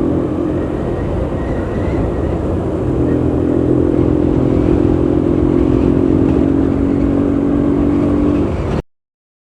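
Motorcycle engine running steadily while riding, cutting off suddenly near the end.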